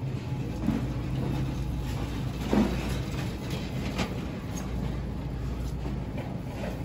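Shopping cart rolling on a smooth concrete floor: a steady low rumble from the wheels, with light rattles and two sharper clicks, one about two and a half seconds in and one at about four seconds.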